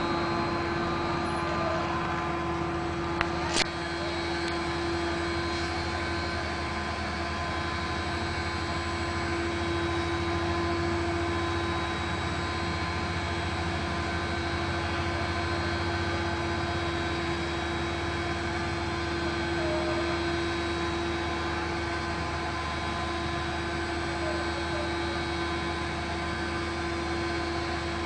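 Steady drone of biogas plant machinery, with a strong constant hum and several steady tones that hold level throughout. Two sharp clicks a little over three seconds in.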